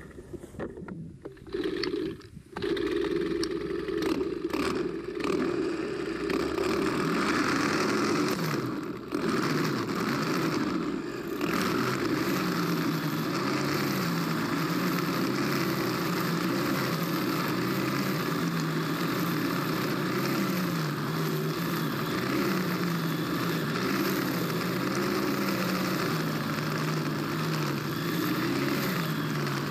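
Stihl FS90R string trimmer's small 4-MIX engine starts after a few short bursts and catches about two and a half seconds in. It then runs on, the engine note rising and falling as the trigger is worked and the string head cuts through tall grass.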